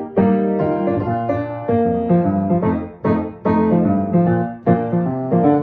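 Piano playing an instrumental introduction to a children's song, with chords struck one after another.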